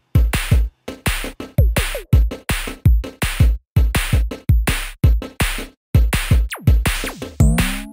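Upbeat electronic background music with a steady drum-machine beat, and a rising synth sweep near the end.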